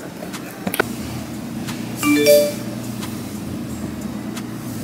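A text-message notification chime about two seconds in: three short rising notes, over a steady low hum. A couple of light clicks come in the first second.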